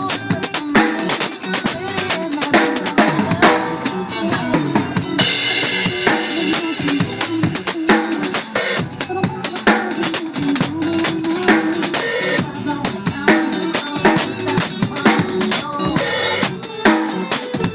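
Drum kit played continuously in a busy pattern of kick drum, snare and cymbal hits, with a stretch of heavier cymbal wash about five seconds in.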